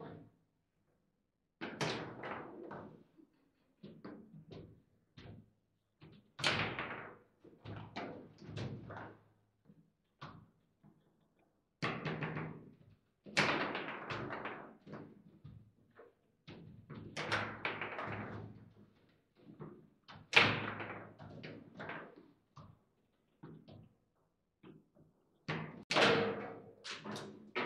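Foosball table in play: the ball being struck and blocked by the plastic men, with the metal rods clattering and knocking against the table. It comes in clusters of rapid sharp knocks every second or two, with short pauses between, and the loudest knocks fall near the end.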